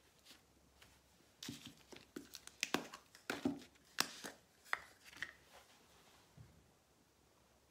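Small plastic paint jars being handled and set down on a table: a run of clicks and light knocks, starting about a second and a half in and ending after about five seconds.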